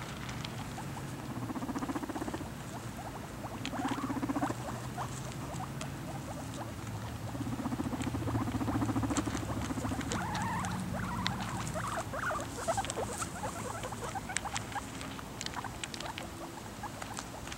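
Guinea pigs crunching dry pellet food from a bowl: a steady run of small, quick crunching clicks. A low pulsing rumble comes and goes a few times.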